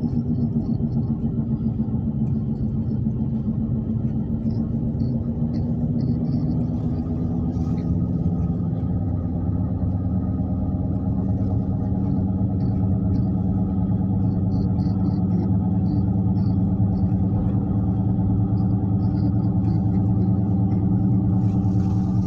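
Steady droning hum from a car's wheel while driving, heard inside the cabin, its pitch shifting slowly with speed. The noise comes from the right front wheel, which the driver takes for a bad wheel bearing unless it is a bad tire.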